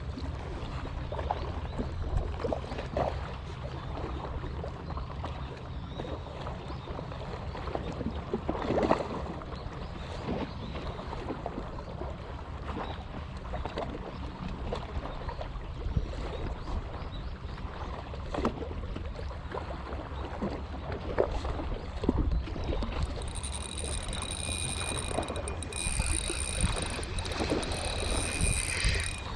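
A steady low engine drone runs under wind and water noise, with scattered light knocks and clicks. A faint, thin high whine joins about three-quarters of the way in.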